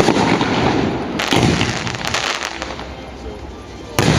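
Fireworks crackling and popping in dense rapid volleys, with a fresh burst about a second in, dying down, then a sudden loud bang near the end.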